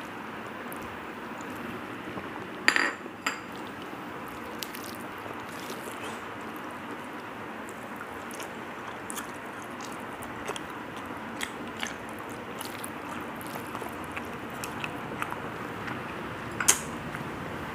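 A person eating rice and curry by hand: a dish clattering against the table about three seconds in, then chewing and small wet mouth clicks over a steady hiss, with one sharp click near the end.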